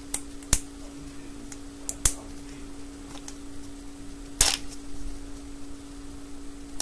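Plastic wrapper and shell of a 5 Surprise Toy Mini Brands capsule ball being picked and peeled at by fingers: a few scattered sharp clicks and crinkles, the loudest about four seconds in. A steady low hum runs underneath.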